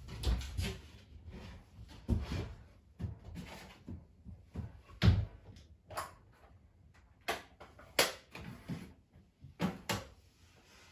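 A string of separate household knocks and thumps, like doors and cupboards being opened and shut, the sharpest about five seconds in.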